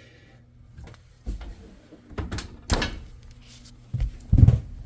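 A few irregular knocks and clunks of hands handling metal parts of a gas range, with the loudest low thump near the end.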